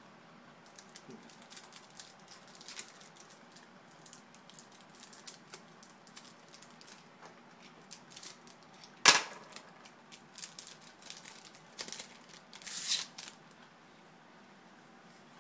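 Baseball trading cards being handled and flipped through by hand: a run of small clicks and slides, with one sharp snap about nine seconds in and a short rustle near the end.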